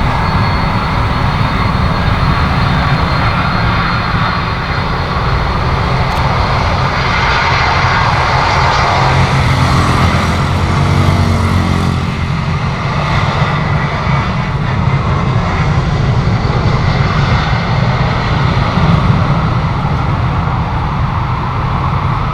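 A jet airliner's engines with a continuous deep rumble as it arrives. The engine whine sweeps down in pitch as it passes about ten seconds in.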